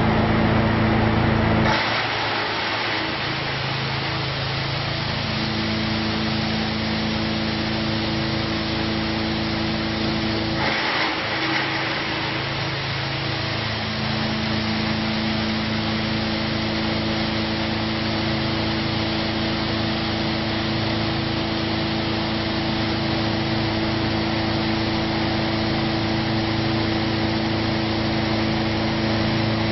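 Wood grinder running steadily, grinding wood with a constant motor hum under a rough grinding noise. The sound changes abruptly about two seconds in and again around eleven seconds in, then runs on evenly.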